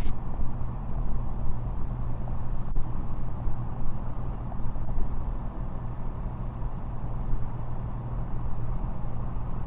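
Cessna 185's piston engine and propeller droning steadily in cruise flight, heard inside the cabin, with the engine running great.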